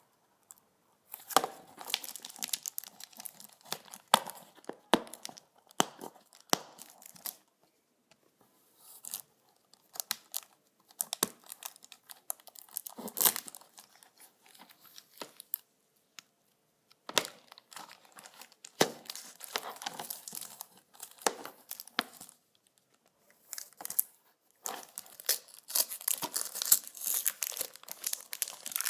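Plastic shrink-wrap being torn and peeled off a DVD case, crinkling and crackling in bouts with short pauses between them.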